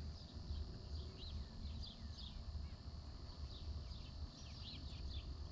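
Small birds chirping and twittering: many short, high chirps coming irregularly one after another, over a low steady rumble.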